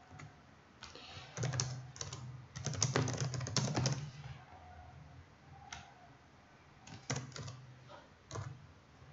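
Typing on a computer keyboard: two quick runs of keystrokes in the first four seconds, then a few scattered single clicks.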